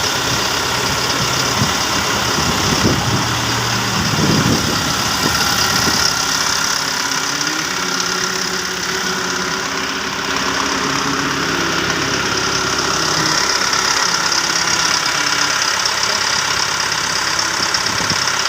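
The Marais machine's engine running steadily at idle, loud and continuous, on a machine that has been hard to start.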